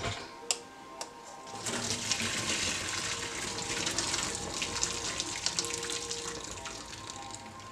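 A few light knocks, then hot water pouring and splashing into a stainless-steel sink for about five seconds as the boiling water is drained off a pot of broccoli.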